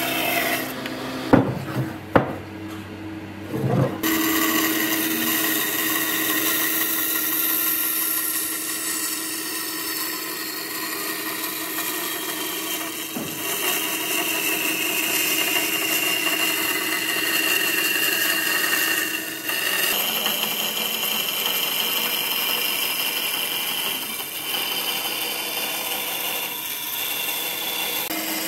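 Band saw running and cutting a curve through a thick wooden board, a steady sawing noise with a hum of several steady tones. Two sharp knocks, the loudest sounds, come about one and two seconds in, during a brief quieter stretch before the cutting noise resumes.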